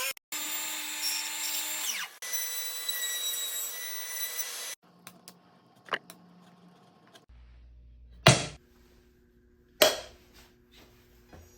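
A woodworking power tool runs in two bursts of two to three seconds, each cutting off abruptly. A few light clicks follow, then two sharp knocks a second and a half apart.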